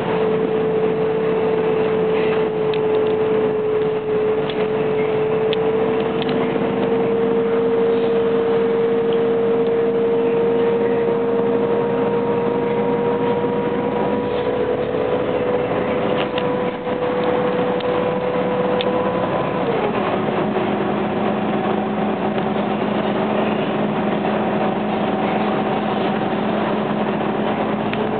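Irisbus Crossway LE city bus under way, heard from inside the passenger cabin: engine and drivetrain running over road noise, with a steady whine that climbs slowly in pitch and then drops abruptly about twenty seconds in.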